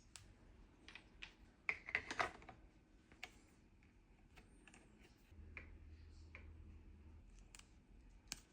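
Faint, scattered light clicks and taps, with a quick run of clicks about two seconds in and a low hum for about two seconds past the middle.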